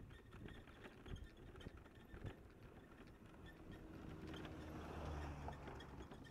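Faint, irregular crackling of burning wood and vegetation. A low droning hum swells up about four seconds in and fades again just before the end.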